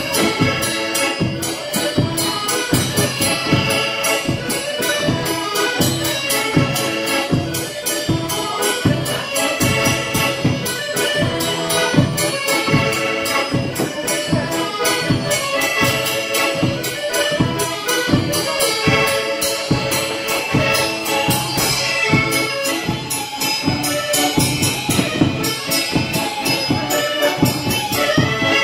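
Traditional Polish village band playing a tune: fiddle and Soprani piano accordion carry the melody over a steady beat on a baraban bass drum with a cymbal mounted on it.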